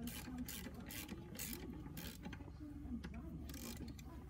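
Hand socket ratchet on a long extension clicking in short strokes, about two clicks a second, as the transmission mount bolts on the crossmember are snugged down.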